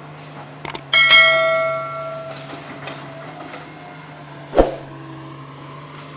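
Metal struck once, ringing for about a second and a half before dying away, over the steady low hum of an idling engine; a dull knock follows a few seconds later.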